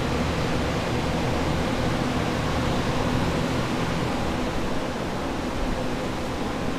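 Water-damage drying equipment running: the steady rush of snail-shell air movers and a commercial Phoenix dehumidifier, with a low hum under it.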